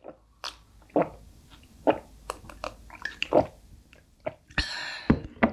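Close-miked drinking: several swallowing gulps of an iced drink, about a second apart, among small wet mouth clicks, with a short hissing burst near the end.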